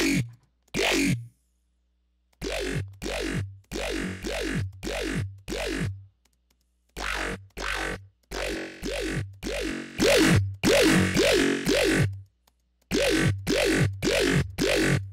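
Synthesized dubstep bass one-shot from an Xfer Serum patch, played over and over about twice a second in runs with short pauses between them. Each hit carries a pitch sweep over a deep sub bass, and one run in the second half is louder than the rest.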